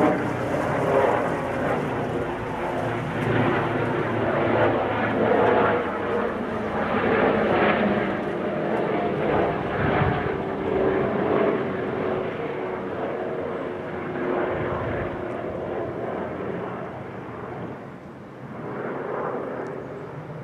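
Airbus EC145 T2 twin-turbine helicopter flying past overhead, a steady rotor-and-turbine drone that fades over the last few seconds as it moves away.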